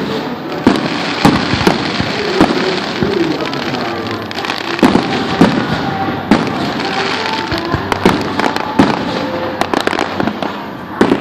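Fireworks going off: about a dozen sharp bangs of bursting shells at uneven intervals, with a steady hiss between them.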